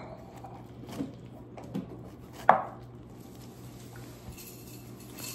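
Kitchen knife cutting pineapple on a cutting board: a few separate knocks, the loudest about two and a half seconds in.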